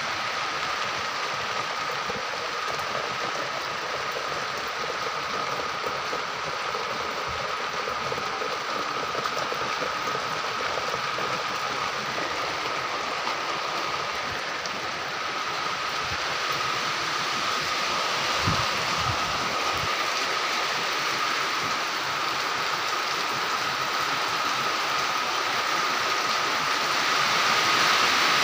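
Steady downpour of rain falling on a concrete yard and puddles, growing louder near the end. A thin steady tone runs underneath, and a few low thumps come about two-thirds through.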